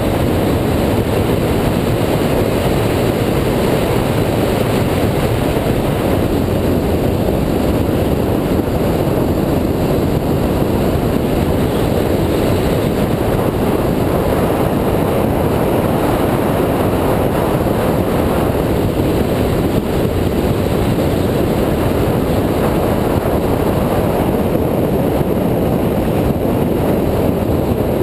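2004 Mini Cooper S at speed on a track, heard as a steady, loud rush of wind and road noise with no distinct engine note standing out.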